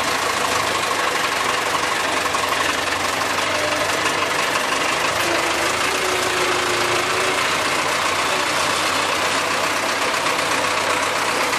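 Farm tractor engine running steadily at close range, heard from the driver's seat as the tractor drives along.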